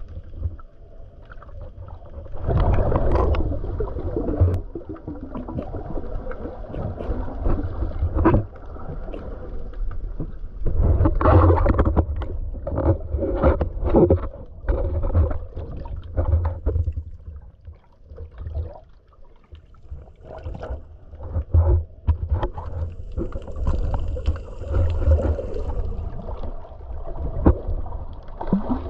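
Muffled underwater noise picked up by a submerged camera: low rumbling water movement and gurgling, with many sharp clicks and knocks, swelling louder a few times.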